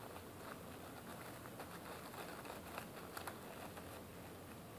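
Thin plastic wrapper crinkling and rustling in the hands as a phone's USB charging cable is pulled out of it: a scatter of faint crackles, busiest about halfway through.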